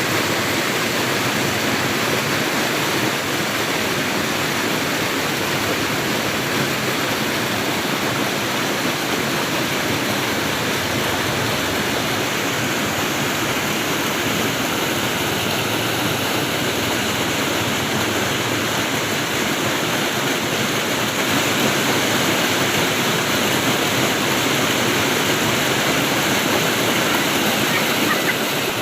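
Water flowing steadily over rocks in a stream or small waterfall, a continuous even rushing.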